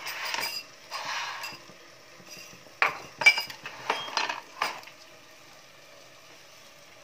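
Steel kitchenware and glass bowls being handled: two short scraping shuffles, then a quick run of sharp clinks and knocks, about seven in two seconds.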